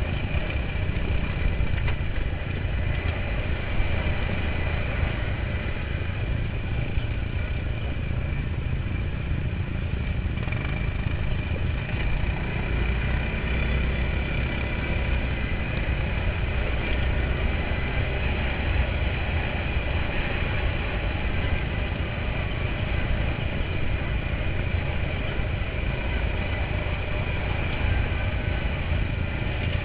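Quad bike (ATV) engine running steadily while riding along a dirt track, heard from the moving quad. Heavy low wind rumble on the microphone runs under it.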